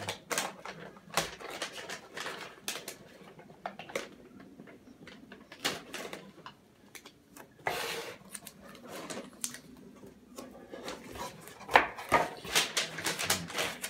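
Cardboard boxes being handled and wrapping paper crinkling: scattered sharp clicks, taps and rustles, a longer rustle about eight seconds in and a sharp snap just before twelve seconds.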